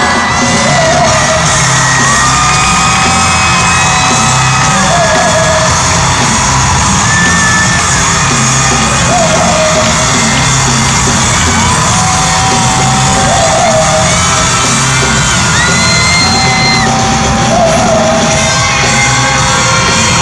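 Loud live pop-rock concert music in an arena, with a pulsing bass beat under long held melody notes, and the crowd yelling along.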